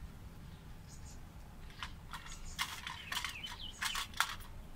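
Scratchy scraping and clicking of a plastic infrared-beam housing and its wire being handled against a brick wall, in a run of short scrapes from about two seconds in. A few bird chirps sound in the background.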